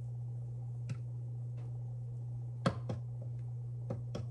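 A few light knocks and clicks of things being handled in a kitchen, the loudest about two and a half seconds in, over a steady low hum.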